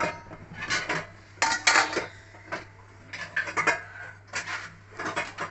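Kitchen utensils clinking and scraping against a metal kadai of finished curry, in about half a dozen short bouts of clatter.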